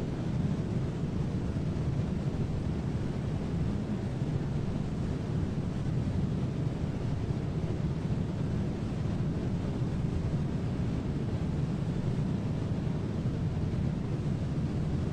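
Steady rush of a large waterfall, the Iguazu Falls, heard as an unbroken deep rumble with no rhythm or breaks.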